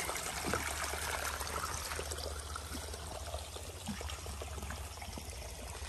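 Shallow mountain-spring stream trickling over stones, with small splashes from hands dipping in the water.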